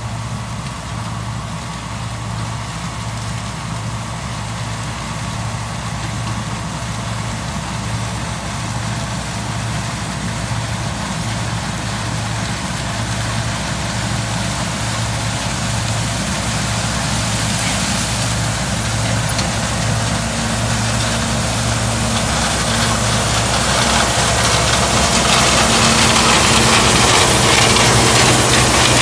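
John Deere 6620 Turbo combine harvesting corn: its turbocharged diesel engine and threshing machinery run with a steady low pulsing drone that grows slowly louder as it comes closer, with more hiss and rattle near the end.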